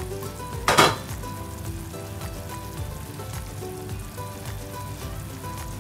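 Chicken roast in thick red gravy sizzling and bubbling in an open frying pan on low flame, with a short loud burst of noise about a second in. Soft background music plays over it.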